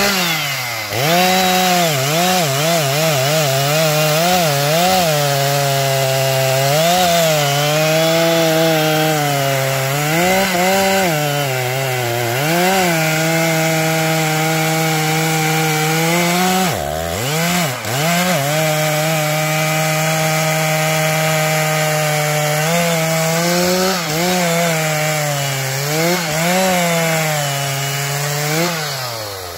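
Stihl MS 660 two-stroke chainsaw at full throttle cutting through a standing tree's trunk. The engine pitch sags repeatedly under the load of the cut and picks back up, with a brief drop and recovery about two-thirds of the way through.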